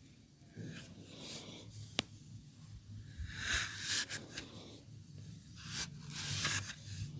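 Hands rubbing and working over skin during a massage: rustling rubbing strokes, the loudest two about halfway through and near the end, with a sharp click about two seconds in and a few lighter clicks later. A low steady hum runs underneath.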